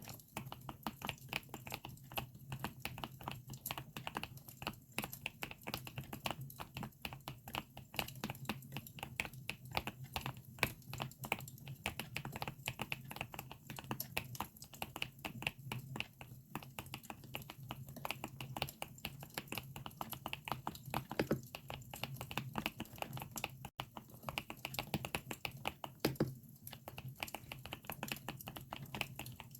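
Continuous fast typing on a GMK67 mechanical keyboard fitted with Akko Lavender switches: many quick keystroke clacks a second, with a short pause near the end. The crackle of a campfire is mixed in underneath.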